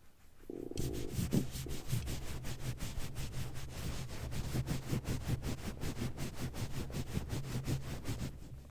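Breasts shaken rapidly against a microphone: fast, even rubbing and brushing of skin on the mic, about six strokes a second, with handling rumble underneath. It starts just under a second in and stops near the end.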